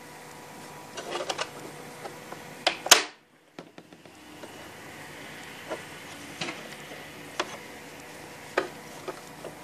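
Scattered plastic clicks and knocks, the loudest about three seconds in, from the housing and parts of a Dirt Devil vacuum cleaner being handled and fitted back together, over a faint steady hum.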